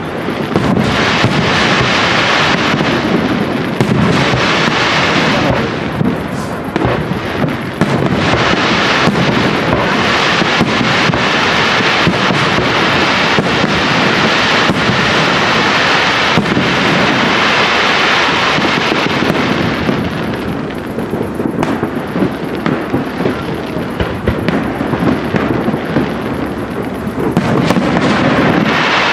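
Aerial firework shells bursting in quick succession, a dense barrage of bangs and crackle. It thins out about twenty seconds in and builds again near the end.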